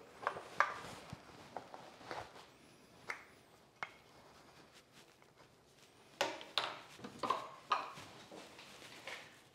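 Workshop handling sounds: scattered light clicks and knocks of tools and wood, then four short scraping strokes in quick succession about six to eight seconds in.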